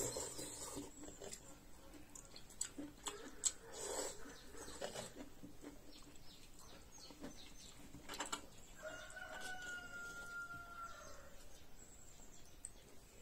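A spoon clinks against a metal bowl, with eating sounds, over the first few seconds. Later a rooster crows once, a drawn-out call of about two seconds.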